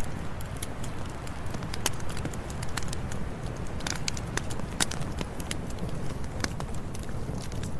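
Campfire burning: wood crackling and popping in irregular sharp snaps over a steady low rumble of the flames.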